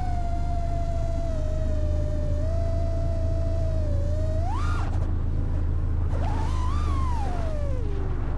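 FPV freestyle quadcopter's brushless motors whining, the pitch shifting with throttle. A sharp punch up and back down about four and a half seconds in, then another swell that falls away near the end, over a steady low rumble.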